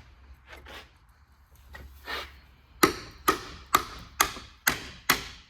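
Light handling clatter, then from nearly three seconds in six sharp hammer blows, about two a second, each ringing briefly, struck on a 1957 Ford Thunderbird's differential carrier to break it loose from the axle housing, where it has been sealed with silicone.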